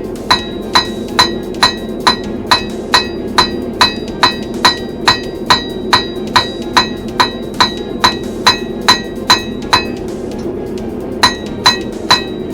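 Blacksmith's hammer striking steel on an anvil at a steady pace of about two blows a second, each blow ringing. The blows pause for about a second near the end, then resume. The steady roar of the forge runs underneath.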